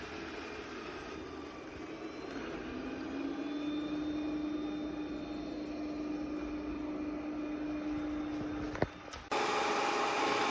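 Robot vacuum running with a steady whirring hum. Its motor tone comes in about two and a half seconds in, rises slightly, then holds. A sharp click comes near the end, and just after it the sound changes abruptly.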